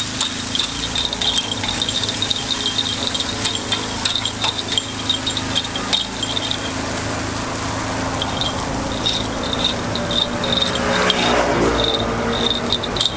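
Metal takoyaki picks clicking and scraping rapidly against a takoyaki griddle as the balls are flipped: quick runs of light metallic ticks, pausing for about a second and a half just past halfway. A steady low hum runs underneath, and a swell of noise comes near the end.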